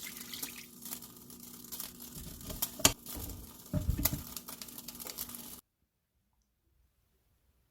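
Kitchen handling sounds during home cooking: light clicks, small knocks and crinkly rustling, with two heavier knocks around three and four seconds in, cutting off abruptly to silence a little past halfway.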